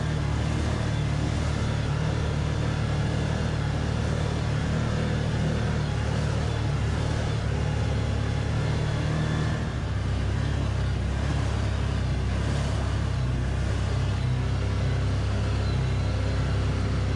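Side-by-side UTV engine running steadily at about 4,650 rpm while cruising, heard from the open cab at the driver's seat. The engine note eases briefly and shifts about ten seconds in, then holds steady again.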